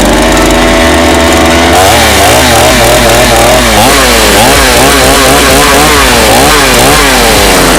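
Chainsaw engine running loud, held steady at first, then revved up and down about twice a second from about two seconds in.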